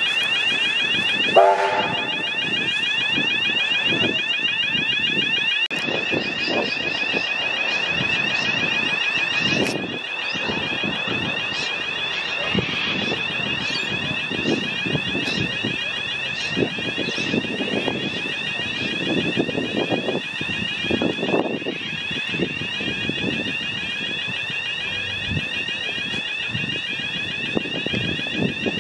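Railway level crossing warning bells ringing: a fast, steady electronic ringing with a rumble of the passing train underneath. A short pitched tone sounds about a second and a half in.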